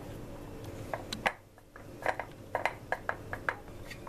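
Light clicks and taps as fingers press soft cookie dough into the cups of a metal muffin tin: a few near the start, then a quick run of about eight clicks in the second half, over a steady low room hum.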